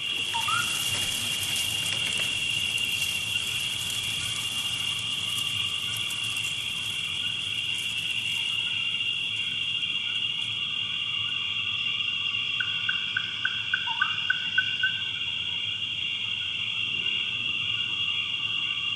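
Steady, high insect chorus, as of a forest ambience, with a short run of quick chirps, about four a second, two-thirds of the way through, and two brief rising calls, one near the start and one around the chirps.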